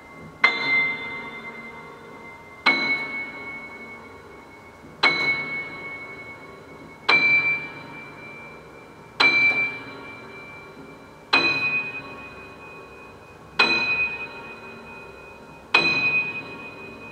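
Grand piano playing a slow series of single struck chords, eight of them about two seconds apart, each left to ring and fade; the high top note climbs a little in pitch over the run.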